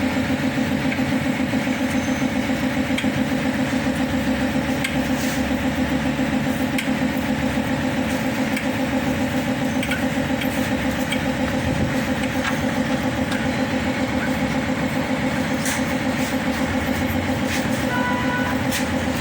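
An engine idling steadily with an even, regular pulse, and a few light metallic clicks of tools over it.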